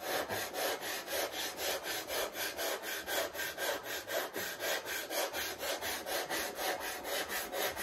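Perma-Grit tungsten-carbide sanding bar being rubbed back and forth over soft balsa blocks, a rhythmic scraping at about three strokes a second. The blocks are being sanded down level with the fuselage sides.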